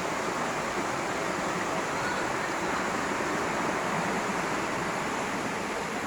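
Waterfall's water pouring down, a steady, even rushing.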